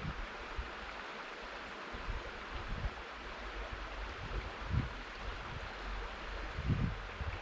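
Steady rush of river water flowing, with a few low gusts of wind buffeting the microphone, one about two-thirds in and another near the end.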